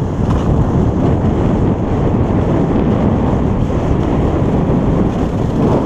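Steady rumbling wind noise buffeting the microphone of a skier's body-worn camera during a fast straight run downhill.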